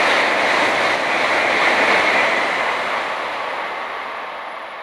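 Shinkansen bullet train passing through a station at high speed: a loud, steady rush of air and wheel noise that fades away over the last couple of seconds as the train recedes.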